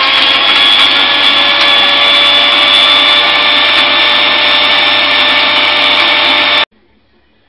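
Countertop jug blender running at speed, chopping marinade ingredients. Its motor is loud and steady, just reaching speed as it begins, then cuts off suddenly near the end.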